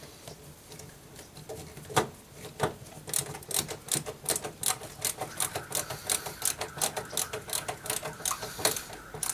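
Hand screwdriver tightening a Phillips screw into the door panel: a few separate clicks, then from about three seconds in a steady run of clicks, about four a second.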